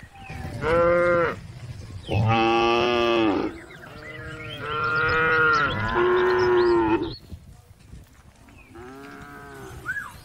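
Cattle mooing: a run of drawn-out moos, each about one to one and a half seconds long, with short gaps between, the last one near the end fainter.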